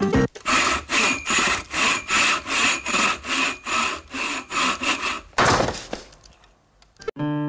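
Hand saw cutting through wood in even back-and-forth strokes, about two and a half a second, each stroke a rasp with a slight ring. It ends with one longer rasp and fades away near the end.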